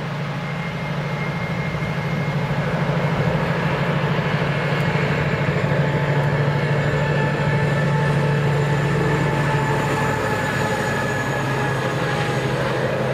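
Colas Rail Class 70 diesel locomotive with its GE PowerHaul V16 engine, running with a steady low throb as it hauls a train of loaded box wagons past. The sound grows louder over the first few seconds as the train nears. Thin high whining tones sit above the engine note.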